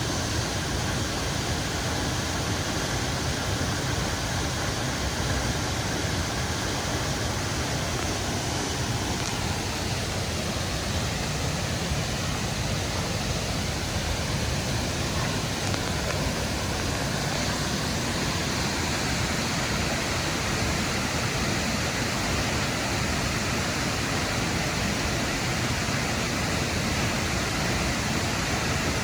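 Rushing water of a waterfall or creek, a steady even rush with no breaks.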